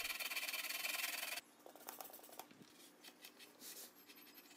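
Sandpaper rubbed quickly back and forth over a plastic motorcycle fairing, scuffing it so fiberglass resin will bond: a fast, scratchy rasp that stops abruptly about a second and a half in. Fainter rubbing and handling follow as a cloth wipes the part.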